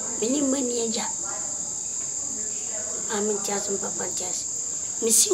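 Crickets trilling in one steady, unbroken high tone, with short stretches of talk over it.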